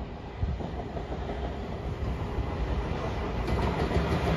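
Freight train hauled by a JR Freight EF210 electric locomotive approaching on the tracks. Its rumble and wheel noise grow steadily louder.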